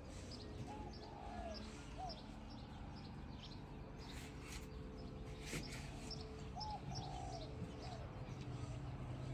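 Birds chirping in the garden: a steady run of short high chirps, about three a second, with a few lower, falling calls now and then. A couple of brief soft noises come about halfway through.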